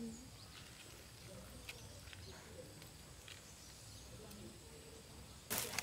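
Faint outdoor background with a few weak distant calls, then near the end a sudden loud crinkling rush of a plastic sheet being shaken out and spread on the ground.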